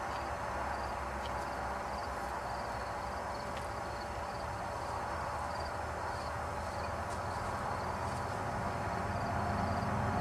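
Outdoor field ambience with insects chirping, a short high chirp repeating about twice a second. Near the end a vehicle's sound grows louder.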